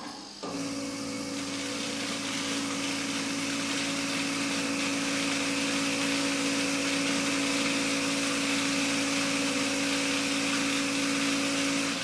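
Contador 2 seed counter running with a steady mechanical hum and hiss, which starts suddenly about half a second in and cuts off near the end: the machine feeding and counting seeds into the next bag.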